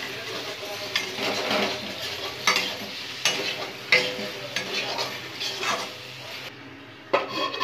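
A spatula scrapes and stirs taro pieces around a metal kadai, about one stroke a second, over the sizzle of the masala frying in oil. A louder metal clank comes near the end.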